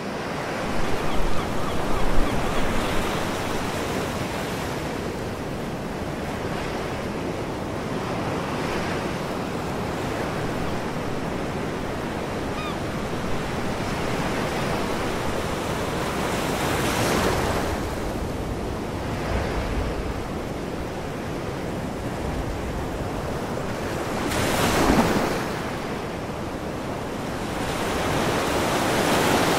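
Ocean surf: a continuous rush of waves breaking and washing in, swelling louder twice in the second half and building again near the end.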